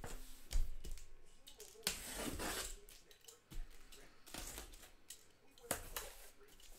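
Cardboard shipping case being handled and slid across a desk: a thump about half a second in, a longer scraping rush around two seconds in, and scattered taps and knocks, the sharpest near the end.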